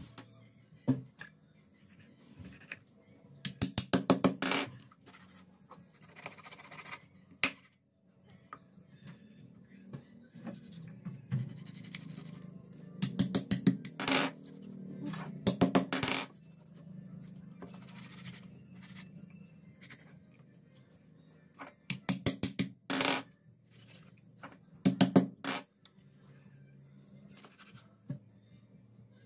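Kitchen knife cutting a patin catfish into steaks on a cutting board: several short bursts of rapid knocking and scraping strokes as the blade works through the fish and meets the board.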